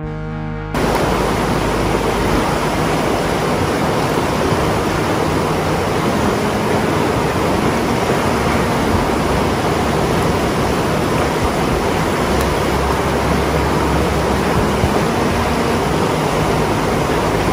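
Fast river rushing over rocks and through whitewater, a loud, steady, even rush of water that starts abruptly about a second in.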